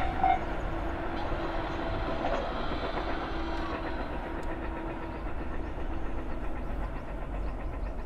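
A Japanese railway crossing's warning bell rings its last strokes and stops just after the start, while an electric train rumbles away down the line, its noise slowly fading.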